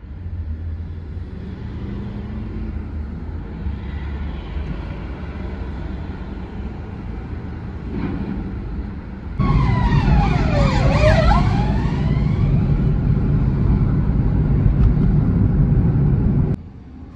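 Car cabin road and engine noise, a steady low rumble that turns suddenly louder about nine seconds in and drops again near the end. Around ten seconds in, a high tone sweeps down and back up once over about two seconds.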